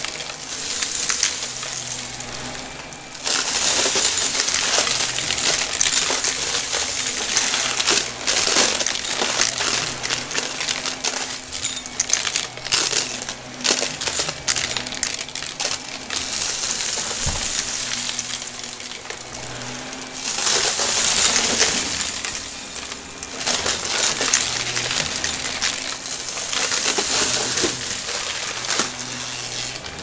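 Shark upright vacuum running on carpet: a steady motor hum under a loud airflow hiss, with a constant clatter of small clicks and rattles as confetti and small debris are sucked up. The hiss swells and dips as the head passes over and off the pile.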